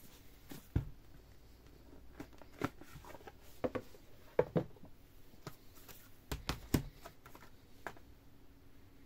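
Plastic DVD cases being slid out of a cardboard box set and handled: irregular clicks, knocks and light rustling, the loudest knocks a little before halfway and again about two-thirds of the way in.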